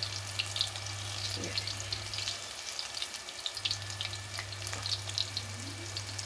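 Spinach pakoras (gram-flour batter fritters) deep-frying in hot oil in a kadhai: steady sizzling thick with small crackles and pops.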